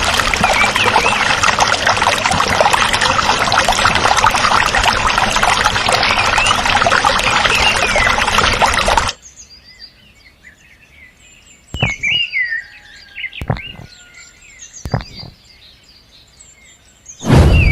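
Loud running or pouring water with small birds chirping over it; the water stops abruptly about nine seconds in, leaving quiet bird chirps and a few short knocks.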